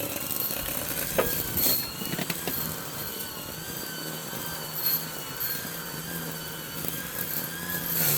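Small engine running at a steady speed, its pitch wavering slightly, with a few sharp clicks in the first two seconds.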